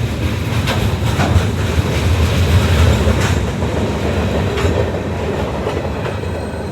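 Train rolling past close by: a loud, steady rumble with irregular clacks of wheels over the rail joints and a faint high whine.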